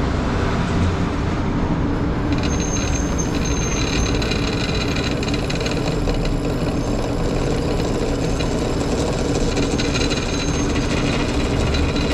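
Drill press motor running steadily. From about two seconds in, a 1/8-inch bit cuts into the grab bar's metal with a high whine that lasts nearly to the end.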